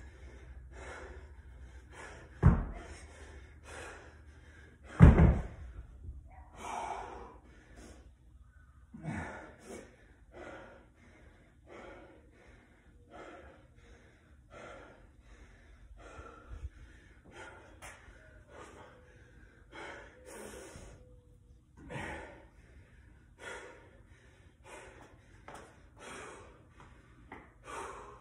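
A 50-pound dumbbell thuds onto a rubber floor mat twice, about two and a half and five seconds in, the second the louder. Then heavy gasping breaths, roughly one a second, from a man winded by dumbbell snatches.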